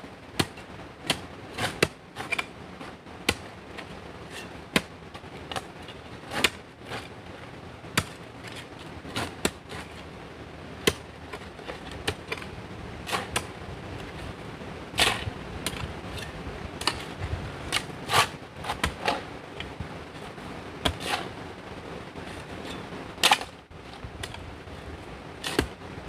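Irregular sharp clacks of stone being struck or knocked together, one or two a second and unevenly loud, over a steady background hiss.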